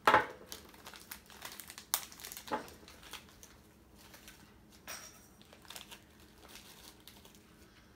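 Crinkling of a plastic candy packet being opened and handled, with a sharp loud rustle right at the start, then scattered smaller crackles and clicks that die away as candies are taken out.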